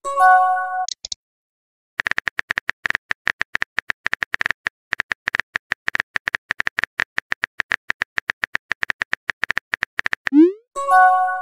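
Simulated phone-chat sound effects: a short chime as a message pops in, then several seconds of rapid, irregular keyboard-typing clicks, then, near the end, a quick rising swoosh followed by another chime.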